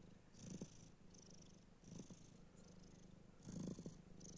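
Domestic cat purring quietly in its sleep, a faint low rumble that swells three times with its breathing.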